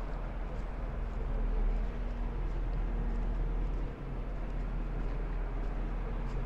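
Steady low rumble with a faint, even machine hum over it.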